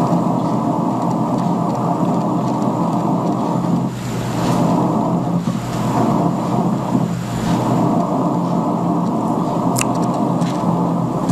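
Radio receiver tuned to 500 kHz, its speaker giving a steady hiss with crackles of atmospheric static from lightning discharges in an approaching thunderstorm. A sharp click near the end.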